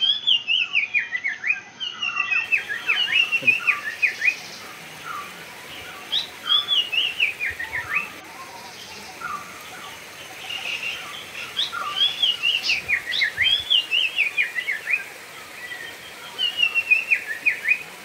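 A songbird singing: repeated phrases of quick, falling chirps, a new phrase every few seconds.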